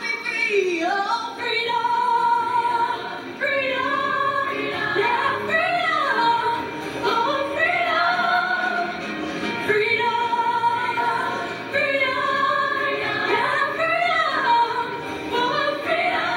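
Show choir singing a song, the melody moving between held notes and sliding pitches.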